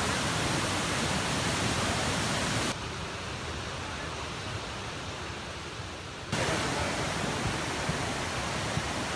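Steady rush of floodwater pouring through a collapsed beaver dam. About three seconds in it drops abruptly to a softer, duller sound of water spilling over the dam, and the loud rush comes back just as abruptly after about six seconds.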